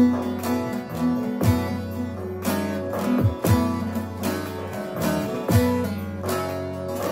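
Bağlama (saz) strummed with quick plectrum strokes, playing a folk melody over steady held low notes.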